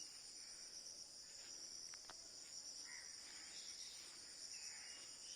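Steady, high-pitched chorus of insects trilling without a break, faint under the quiet.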